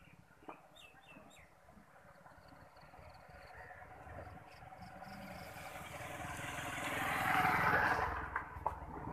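A motor vehicle passing by, growing steadily louder over several seconds, loudest near the end, then fading. A few short bird chirps about a second in.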